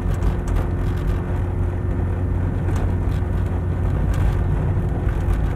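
Inside a moving car's cabin: steady engine and tyre rumble on a snow-covered road, with a few light clicks.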